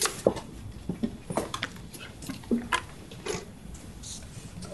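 Scattered short clicks, light knocks and rustles, about a dozen irregular ones: handling noise and movement close to a microphone, over quiet room tone.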